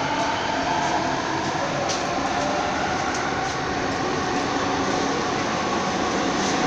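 Bombardier Innovia ART 200 light-metro train running at reduced speed, heard from inside the passenger car: a steady rumble with a faint whine and a few light clicks.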